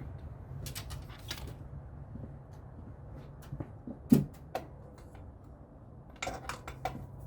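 Scattered clicks and metallic clinks of hand tools and parts being handled while working on a truck engine, with a sharper knock about four seconds in and a run of clicks near the end, over a steady low hum.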